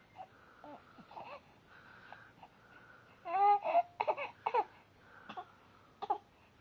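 Short high-pitched squeaky vocal sounds with gliding pitch: a few faint ones at first, a louder cluster about three seconds in, and a couple of brief ones near the end.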